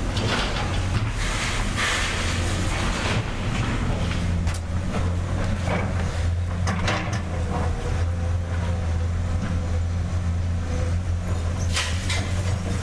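Heavy diesel machinery running steadily with a deep engine drone. A hissing rush comes in the first three seconds, sharp clanks and knocks come at intervals, and a faint whine joins from about six seconds in for several seconds.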